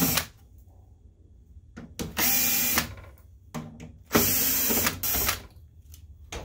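DeWalt cordless drill-driver backing out the screws of a projector's metal top cover, running in short bursts of under a second each: one about two seconds in, another about four seconds in with a brief break.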